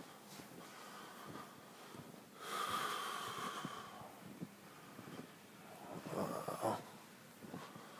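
Two loud, hissy breaths or sniffs close to the microphone, about two and a half seconds in and again about six seconds in, with a faint whistle in the first.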